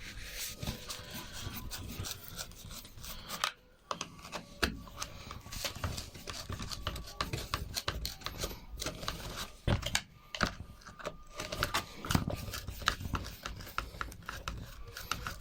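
Irregular small clicks, taps and rubbing of plastic and metal parts as a washing machine drain pump is handled and taken apart by hand.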